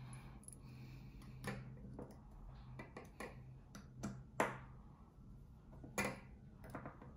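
Small metallic clicks and ticks of a precision screwdriver working the handle screws of a folding knife, a few sharp ticks scattered over several seconds, the loudest about four seconds in. A steady low hum runs underneath.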